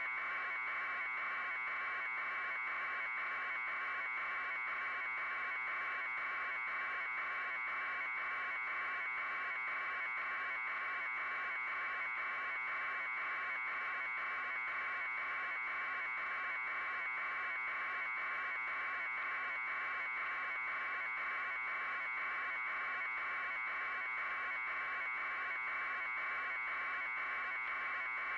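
A steady electronic buzz that pulses rapidly and evenly without a break, with no change in level.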